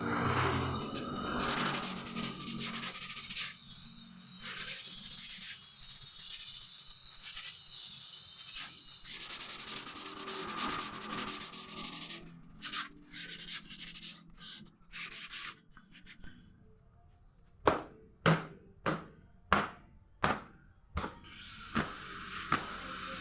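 Wood being sanded by hand, sandpaper rasping across the surface in repeated strokes, then about seven sharp knocks on wood roughly two a second near the end.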